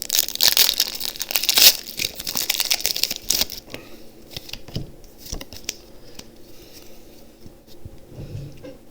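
Foil wrapper of a Pokémon TCG booster pack being torn open and crinkled, loudest over the first three or four seconds. After that come fainter, scattered crinkles and clicks as the pack is handled.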